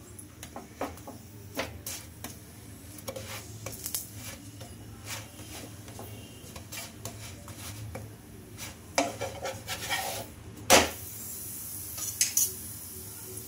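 Wooden slotted spatula pressing and scraping a spinach paratha on a nonstick tawa, with scattered light taps and knocks against the pan. A louder knock comes about eleven seconds in as the paratha is turned over, followed by a faint steady hiss of oil sizzling.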